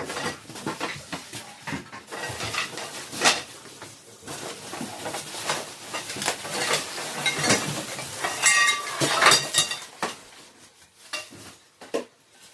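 Clattering, knocking and scraping of flat-pack desk parts and packaging being handled and unpacked. A short squeak sounds about eight and a half seconds in. The handling thins out near the end.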